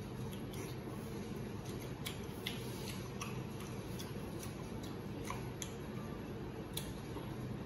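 Chewing braised pork large intestine: irregular wet mouth clicks and smacks over a steady low hum.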